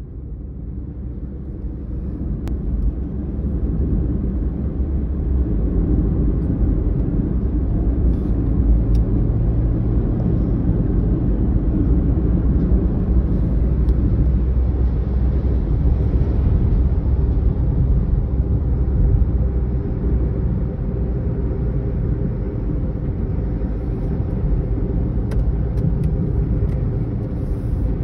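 Car cabin noise while driving on a highway: a steady low rumble of engine and tyres on the road, building over the first few seconds and then holding.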